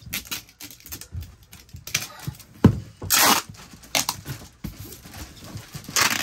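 Clear packing tape pulled and stuck around a cardboard shoebox in several short tearing rasps, the loudest about three seconds in, with a sharp knock just before it.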